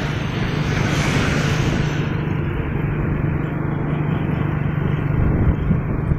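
Motorcycle engine running at a steady cruising speed, a low hum held at one pitch, under wind and road noise. A rush of wind is strongest in the first two seconds.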